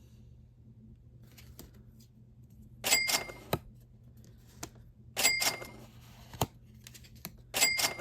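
Trading cards being handled and slid one over another: three short swishes about two and a half seconds apart, each with a faint ring, and a few light clicks between them.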